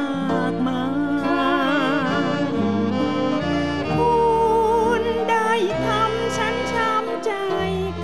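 A live band with saxophones plays a slow Thai luk krung song. A melody with wide vibrato runs over held chords, and a bass line changes note every second or so.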